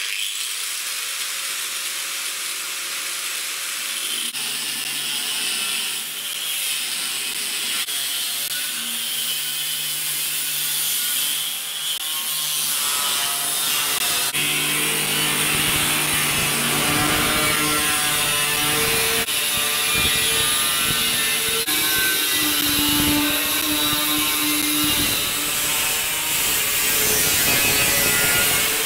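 Angle grinder with a thin cut-off disc cutting through a steel barrel, a steady high screech of disc on metal over the motor's whine. About halfway through the sound grows deeper and a little louder.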